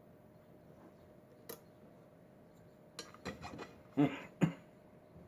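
Lock-picking tools working a Schlage pin-tumbler lock: one faint click, then a quick run of small metallic clicks and rattles about three seconds in, ending in two louder knocks.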